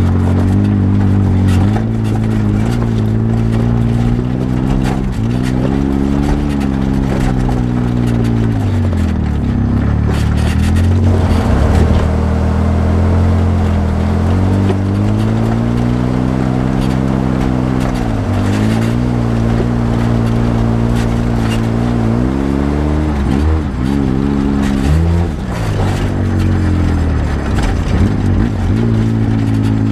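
Polaris RZR side-by-side UTV engine running under load, its revs climbing and falling repeatedly and dropping away sharply three or four times before picking back up. Tyres grind over a loose, rocky dirt trail underneath.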